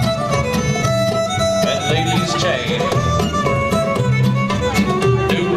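Live contra dance band playing a fiddle-led tune over bass and rhythm accompaniment, with a steady beat.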